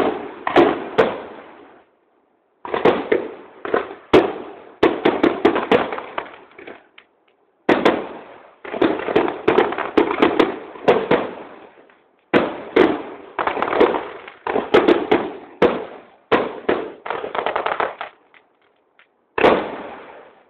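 Aerial fireworks shells bursting in rapid series of sharp bangs, each bang trailing off quickly. The bangs come in volleys of a few seconds, broken by brief pauses.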